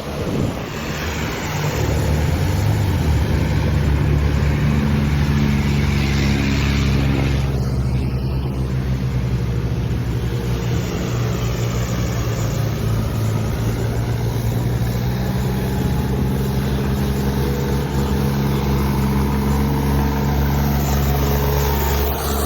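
Heavy diesel engine running hard, building up over the first two seconds and then holding a steady, loud note.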